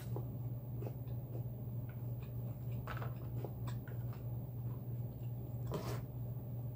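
Close-miked chewing of a mouthful of pizza, soft mouth clicks and smacks over a steady low hum. Just before the end there is a short rustling knock as the pizza slice is set down on the wooden board.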